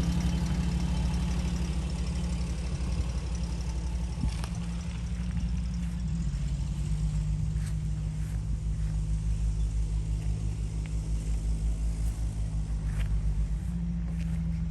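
Postal Jeep engine idling with a steady low hum, its pitch dipping slightly about six seconds in and coming back up near the end.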